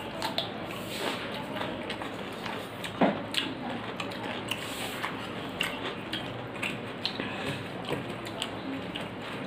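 Fingers mixing rice and dal on a steel plate: soft scrapes and small clicks against the metal, with chewing between mouthfuls and one louder knock about three seconds in.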